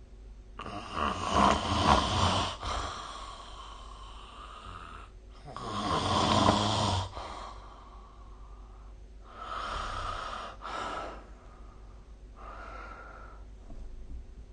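A sleeping person snoring: two loud snores, about a second and a half to two seconds each, each trailing off into softer breathing. Quieter breaths follow around ten seconds in and again near the end.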